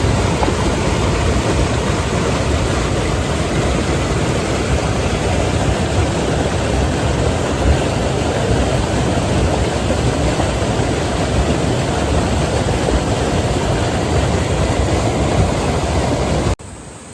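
Mountain valley stream rushing over rocks close to the microphone: a loud, steady rush with a deep rumble. It cuts off abruptly near the end to a much quieter rush.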